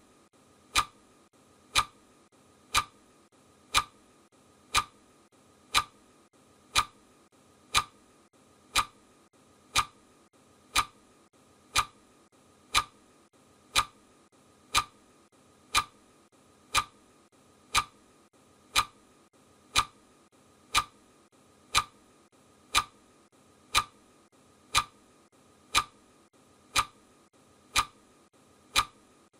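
Clock ticking sound, one sharp tick a second at a steady, even pace, as a countdown timer's ticking track.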